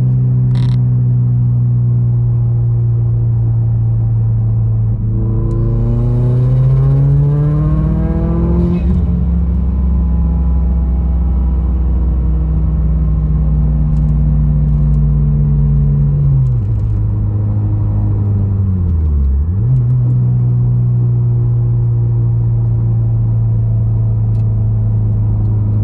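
Subaru WRX's turbocharged FA20DIT flat-four engine running under way, its note climbing as it revs up about five seconds in, holding steady, then dropping twice in pitch some sixteen to nineteen seconds in before settling again.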